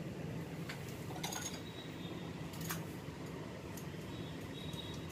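A plastic hand-held cupping suction pump and its cups being worked, giving a handful of sharp plastic clicks and two brief high squeaks as the cups are drawn onto the skin, over a steady low hum.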